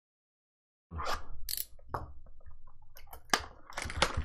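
A cardboard trading-card blaster box being handled and its plastic shrink-wrap pulled at, making irregular crinkling and crackling with sharp clicks. The sound starts about a second in, after a moment of silence.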